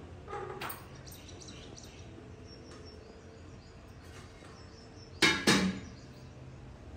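Two sharp metallic clanks about five seconds in, close together and ringing briefly, as a steel pot lid is set down among steel kitchen utensils on a tiled floor; a softer clink comes just after the start.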